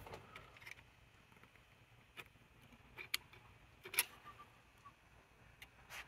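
A handful of faint, sharp ticks and clicks a second or so apart, the loudest about four seconds in, as a probe rod pokes and taps among the wiring and parts inside a vacuum-tube radio chassis.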